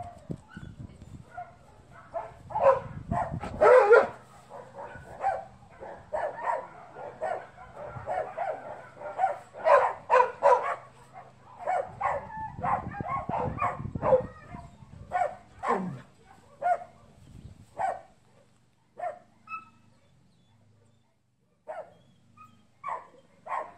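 Dog barking repeatedly, single barks and quick runs of barks, with a lull of a few seconds near the end.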